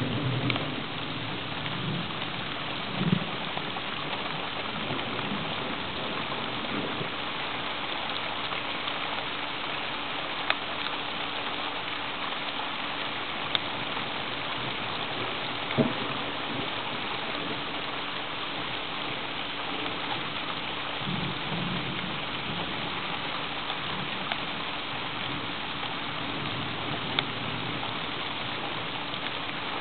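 Steady rain falling at the start of a thunderstorm, with a few sharp drop ticks. Low rumbles of thunder come near the start and again about two-thirds of the way through.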